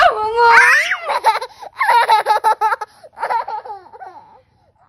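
A toddler laughing, several bursts of quick, high-pitched giggles.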